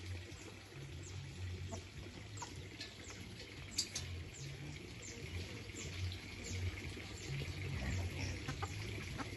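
Chicks peeping in short, high cheeps that fall in pitch, about one or two a second, over a soft low rumble.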